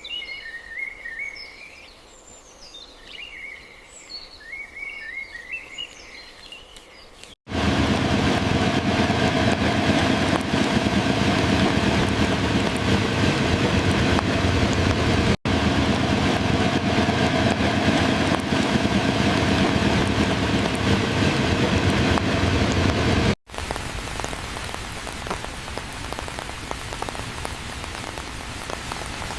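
Small birds chirping for the first several seconds, then a sudden cut to a loud, steady rush of rain that drops to a softer, steady rain after another cut near the end.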